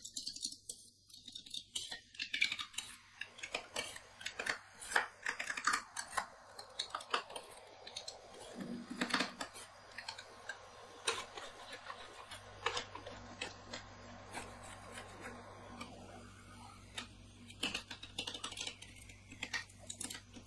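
Two metal spatulas chopping and scraping rolled-ice-cream base on a stainless-steel cold plate: quick, irregular clicks and taps of metal on metal, with scraping strokes between them as the mixture is worked and spread while it freezes.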